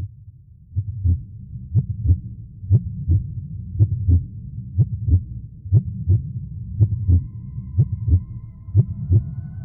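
Slow heartbeat pulse in a dark ambient music track: a low double thump, lub-dub, about once a second. High sustained drone tones join in about seven seconds in.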